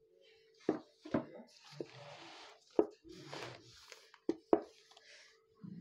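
Handling sounds of a notebook and pen: paper rustling with several sharp knocks and clicks at irregular moments, over a faint steady hum.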